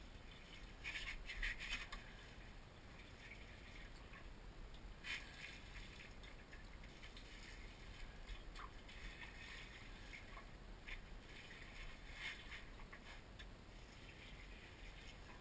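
Faint, scattered rustling and brushing of leaves and handling noise from a handheld camera moving among tomato plants, over a low steady hum. It gets briefly louder about a second in and again around five seconds.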